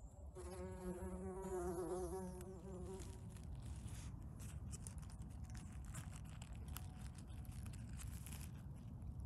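A bumblebee's wings buzzing with a wavering pitch for about two and a half seconds, starting just after the beginning. After it stops, faint rustling and light clicks of fingers working the needle litter around a mushroom.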